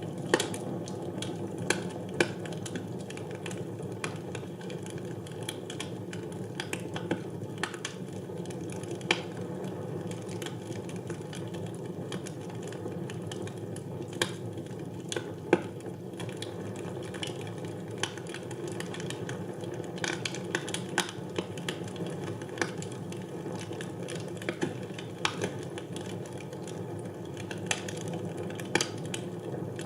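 Wood fire burning in a fireplace: a steady low rush of flames with irregular sharp crackles and pops from the burning logs.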